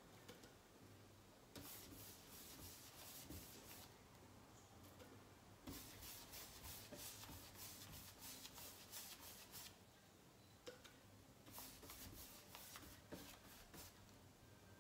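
Faint swish of a paintbrush's bristles dragged back and forth over a cabinet panel, laying off wet paint in quick light strokes, about three a second, in three spells with short pauses between.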